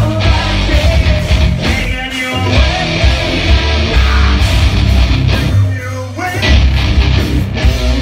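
Live metal band playing loud, with distorted electric guitars, bass and drums, and a vocalist singing over them.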